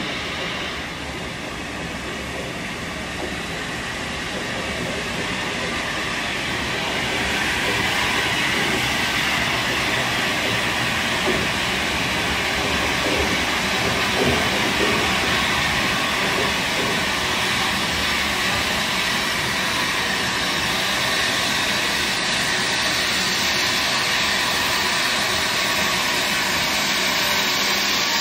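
LMS Jubilee class three-cylinder 4-6-0 steam locomotive 45596 Bahamas hauling its train through a station, growing louder as it approaches over the first several seconds and then holding steady.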